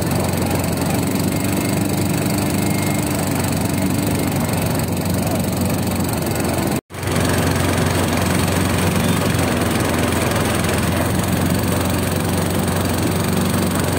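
Small fishing boat's engine running steadily under way. The sound cuts out for an instant about seven seconds in.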